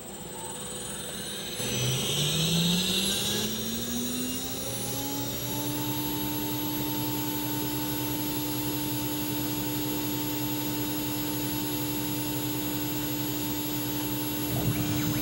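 CNC router spindle spinning up: a whine that rises in pitch over about four seconds and then holds steady at full speed. The spindle runs with no load, its bit not yet in the wood.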